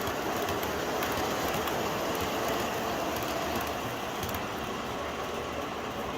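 MTH O-gauge model R-40 subway train running along three-rail track: a steady rumble with light clicking, easing slightly a few seconds in.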